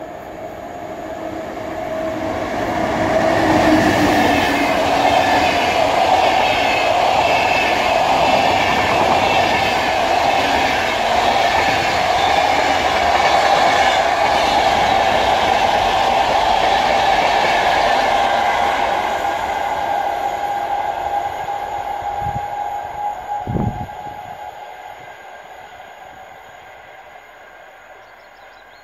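Locomotive-hauled passenger train, led by a VR Sr2 electric locomotive, passing at speed: the rumble and wheel noise build over the first few seconds as it arrives, hold steady with a continuous whine while the coaches run by, then fade as the train pulls away. Two low thumps near the tail of the train.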